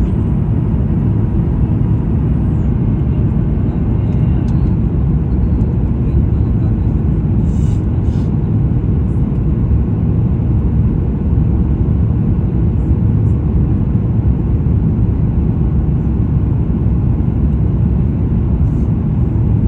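Steady low rumble of a Boeing 737 MAX 9 heard from inside the passenger cabin: its CFM LEAP-1B engines and the airflow over the airframe, with no marked change in level.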